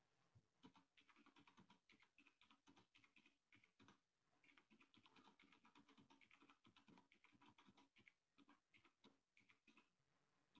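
Faint typing on a computer keyboard: quick runs of key clicks as numbers are entered, with a brief pause a little before the middle.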